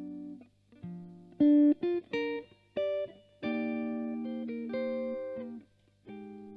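Solo jazz chord-melody on an Epiphone Emperor archtop electric guitar played through a Fender Blues Junior amp. Ringing chords are broken by a few short plucked notes in the middle, then longer held chords, with a faint steady hum underneath.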